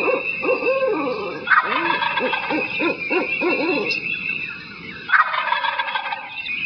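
Turkey gobbling twice, about a second and a half in and again about five seconds in, amid a run of shorter repeated calls.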